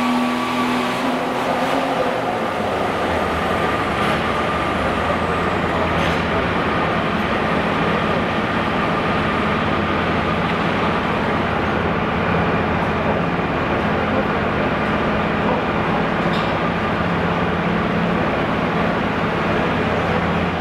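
Massey Ferguson 1855 diesel garden pulling tractor's engine working hard, dropping off about two seconds in as the pull ends. A steady, loud diesel engine din follows, with a faint high whine running throughout.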